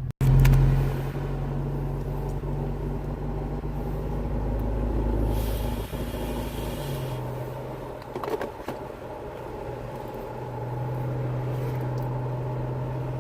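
Inside a moving Dodge Charger Scat Pack: the 392 HEMI V8's low steady drone and road noise. The drone eases off after the middle and picks up again near the end, and a short hiss rises and fades midway.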